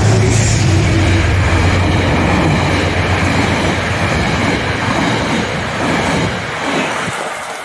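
Metro-North P32AC-DM diesel locomotive and its passenger coaches passing close at speed: a loud, steady rumble and rush of wheels on rail that fades in the last second or so.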